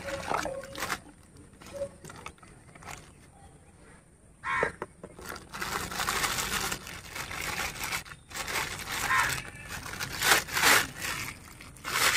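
Plastic bag wrapping crinkling and rustling in irregular bursts as it is pulled off a toy tractor by hand, with cardboard box handling.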